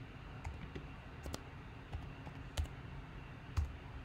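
Typing on a computer keyboard: irregular keystroke clicks, a couple of them louder about two and a half and three and a half seconds in.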